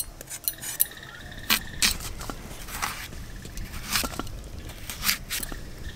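A raw potato being peeled against the curved blade of a boti, making irregular short scraping strokes and small clicks.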